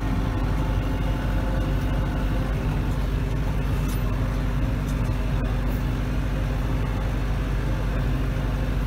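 Branson 5025C compact tractor's diesel engine running steadily at about 1,500 rpm in third gear of the low range, heard from inside the cab. It starts abruptly and then holds an even hum.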